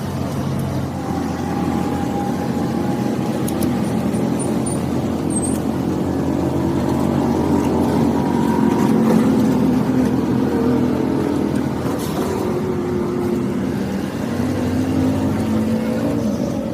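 Motorcycle engine running continuously, its pitch drifting slightly up and down.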